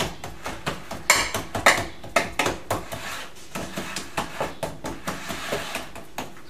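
Biscuit-crumb base being pressed and tamped into a metal cake tin: irregular taps, knocks and scrapes against the tin, louder for a second or so early in the run.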